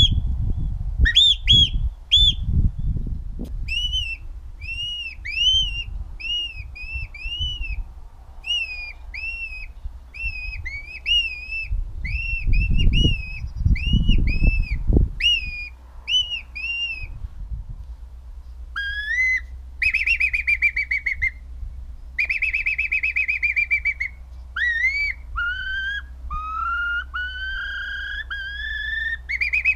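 Finger whistling imitating shorebird calls. It opens with a few short sharp piping notes of a Eurasian oystercatcher, then runs into a long series of arched whistles, about two a second, imitating a European golden plover. In the last ten seconds come longer rising, trilled whistles imitating a whimbrel.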